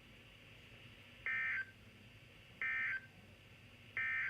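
Reecom R-1630 weather radio's speaker playing the NOAA Weather Radio SAME digital end-of-message code: three short, identical buzzy data bursts about a second and a half apart, marking the end of a flood warning broadcast.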